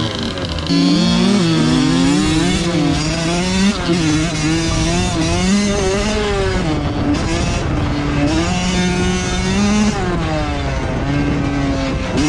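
Two-stroke motocross bike engine under way, its pitch climbing and dropping again and again as the throttle is opened and shut.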